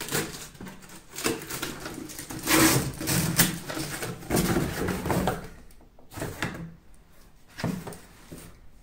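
Cardboard box being opened by hand: packing tape torn and the flaps rustled and pulled back, with scraping and knocks of cardboard. Busy handling for the first six seconds, then two brief rustles.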